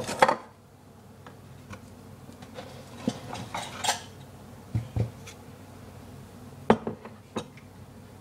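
Kitchenware being handled: a handful of separate knocks and clinks of a pan and dishes being moved and set down, the loudest right at the start.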